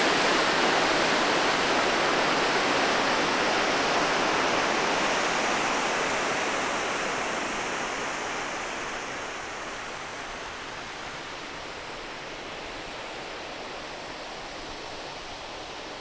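Waterfall and its rocky stream rushing, a steady even sound of falling water that slowly fades over the second half.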